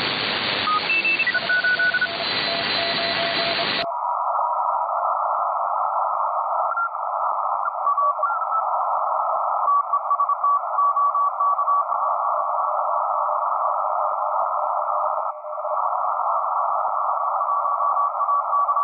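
Shortwave radio receiver audio: steady band-noise hiss with several steady whistles of different pitches as it is tuned. About four seconds in, the sound suddenly narrows to a thinner band of hiss, with a faint tone that breaks on and off.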